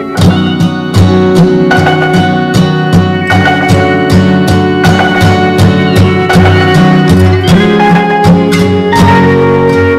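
Background music with a steady drum beat and pitched melodic notes.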